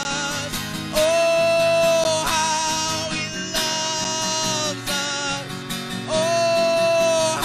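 A man singing a worship song over a strummed acoustic guitar through a small PA, his voice holding long notes, one starting about a second in and another near the end.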